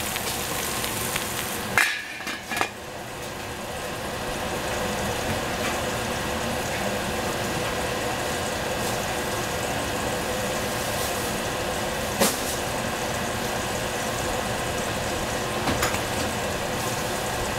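A metal lid set down on a stainless pot with a clank about two seconds in, then cubed cucumber and eggplant sizzling steadily in the covered pot, the sizzle dipping as the lid goes on and building back up. A couple of light clicks come later.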